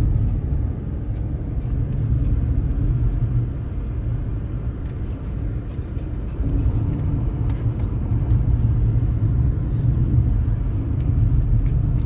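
Car driving along a road, heard from inside the cabin: a steady low rumble of engine and tyres, easing off a little for a few seconds near the middle.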